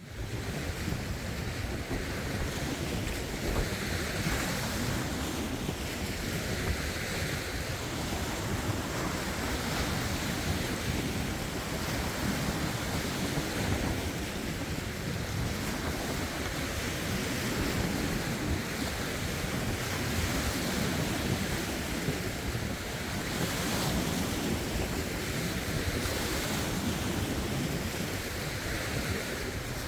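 Lake waves washing over rocks, with a brighter splash every few seconds, under wind blowing across the microphone as a steady low rumble.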